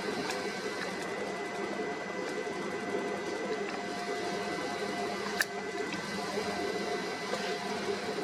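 Steady mechanical hum of a ship's machinery and ventilation, with several constant whining tones over a dense drone. A single sharp click about five seconds in.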